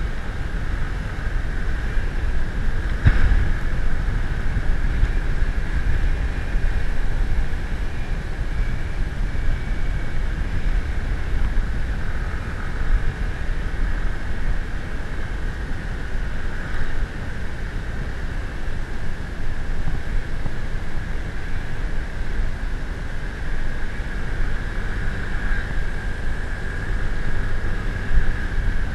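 A vehicle running steadily on the move, with wind rumbling on the microphone and a steady whine.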